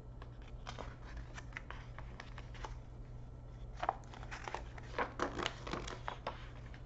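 Pages of a paperback picture book being handled and turned: paper rustling and crinkling in a run of short crackles, loudest about four and five seconds in.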